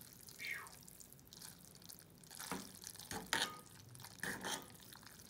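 Several soft, wet clicks and squelches at irregular intervals from saucy ramen noodles being stirred in a pan.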